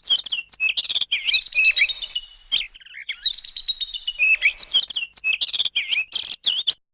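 Birds chirping and twittering in quick, high-pitched runs with sharp clicks, stopping abruptly near the end.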